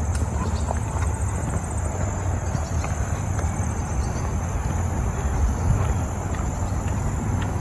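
Wind buffeting the microphone in a steady rumble, with a faint high insect drone behind it.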